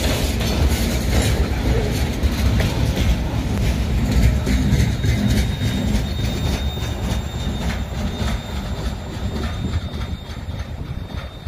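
Freight train boxcars rolling past, their wheels clacking over rail joints over a low rumble. From about halfway a faint, steady, high wheel squeal joins in. The sound starts to fade near the end as the last car goes by.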